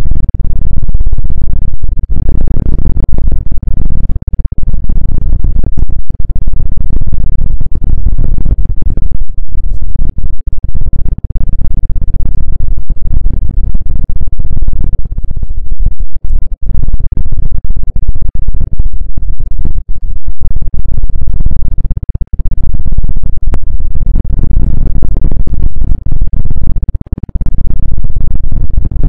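Loud, close-miked rubbing and scratching on an ASMR ear microphone: a dense, low scraping sound broken by brief gaps.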